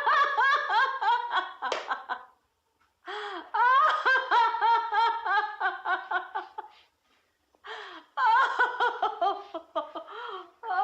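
A woman laughing: high-pitched bouts of quick, repeated laughter pulses, separated by brief silent pauses, with a new bout starting near the end.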